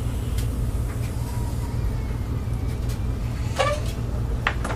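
A steady low rumble of background noise, with two short sharp sounds near the end.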